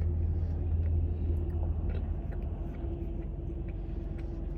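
A steady low rumble with a faint hum above it, easing slightly about halfway through, and a few faint clicks.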